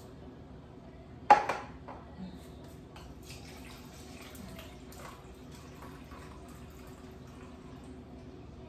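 Juice poured from a bottle into a small measuring cup, trickling for a couple of seconds. A single sharp knock, the loudest sound, comes about a second in.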